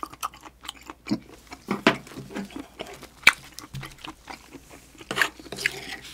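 Close-miked chewing of stir-fried octopus: irregular wet mouth smacks and crunches, with one sharp click about three seconds in.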